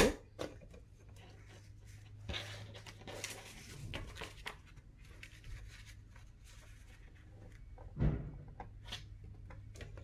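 A sliding paper trimmer cutting a strip of coloured paper. The blade carriage scrapes along its rail a few times between about two and five seconds in, with paper being handled and small clicks, and a louder thump comes about eight seconds in. A faint low hum runs underneath.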